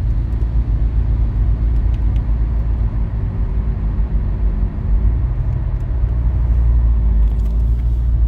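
Inside the cabin of a Renault Laguna III 2.0 dCi at motorway speed: the four-cylinder diesel engine drones steadily under road rumble, the engine not yet fully warm.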